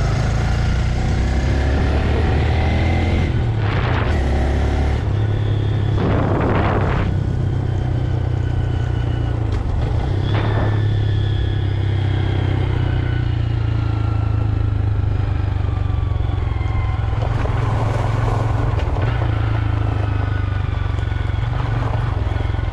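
Stock 2025 Honda Grom's single-cylinder four-stroke engine running on the stock exhaust while riding, its pitch stepping up and down a few times with the throttle. A few short rushes of noise cut across it.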